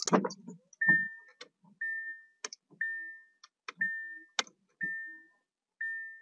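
A car's dashboard warning chime beeping about once a second, six single high beeps that each fade out, as the ignition is switched on. Sharp clicks from the key and from handling come between the beeps.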